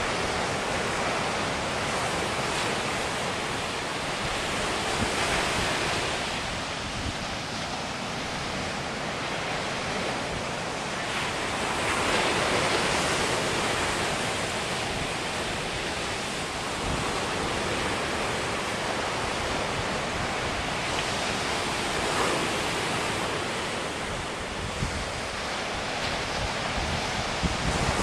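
Atlantic surf breaking on a sandy beach: a steady wash of waves that swells and eases every few seconds as successive breakers come in.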